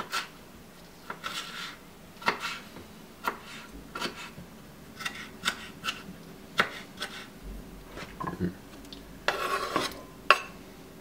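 Chef's knife dicing a tomato on a wooden cutting board: irregular knocks of the blade on the board. Near the end the knife scrapes the diced tomato across the board.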